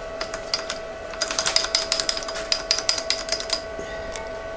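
Rapid run of light metallic clicks and taps, bunched from about a second in to past the middle, as steel digital calipers are handled and set against a cast-iron brake rotor, over a steady background hum.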